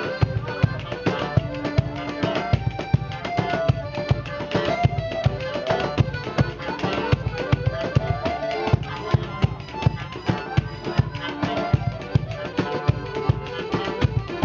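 Live band playing music: fast, busy drumming under a wavering melody line.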